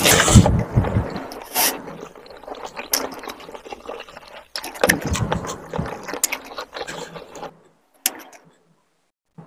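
Close-miked eating sounds: a mouthful of rice and chicken curry taken and chewed wetly at the start, then fingers squishing rice through curry gravy on the plate about halfway through. The sound drops almost to nothing shortly before the end.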